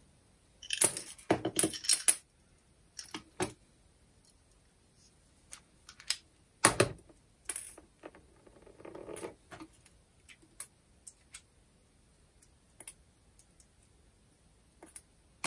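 Clinks and sharp clicks of small metal parts and a hand tool being handled on a metal workbench. They come in short clusters, with a brief scraping rustle about nine seconds in.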